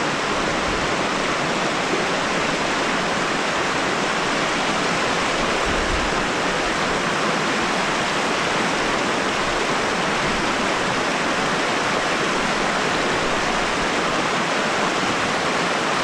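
Steady rush of the Virgin River's fast-flowing water through the canyon, an even hiss that holds level without let-up.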